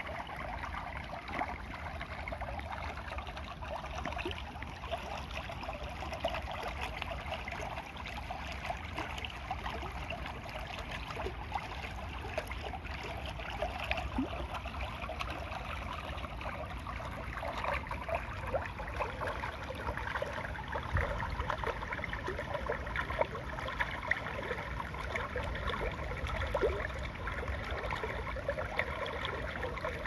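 Shallow stream flowing and splashing over rocks and stones, a steady rush of running water that grows slightly louder in the second half.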